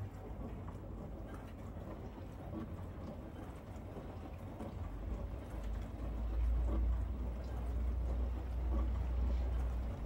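Miele G7310 SC dishwasher running a wash programme: water sloshing and spraying inside the tub over a low hum, with the low rumble growing louder about halfway through.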